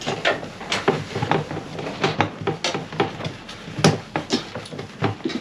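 Microfiber cloth rubbing wax into green fiberglass engine shroud panels: irregular scuffing wipes, several a second, with one louder stroke about four seconds in.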